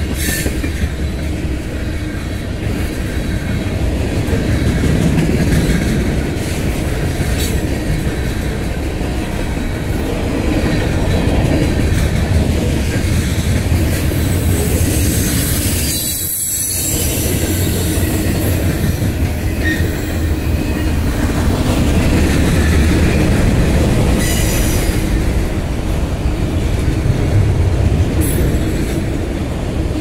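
Freight cars of a long mixed train rolling past: a loud, steady rumble of steel wheels on rail with clatter over the joints, swelling and easing as cars go by, and a thin wheel squeal now and then.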